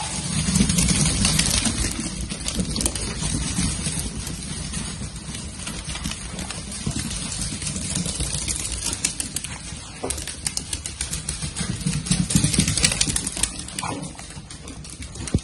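Many dachshund puppies' and adult dachshunds' claws clicking and pattering on a tiled floor as the pack scampers about, a busy stream of small clicks over a low rumble of paws.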